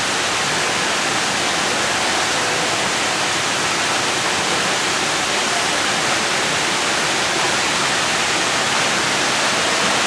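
Steady rush of water from a mini-golf course's water feature, an even, unbroken noise at a constant level.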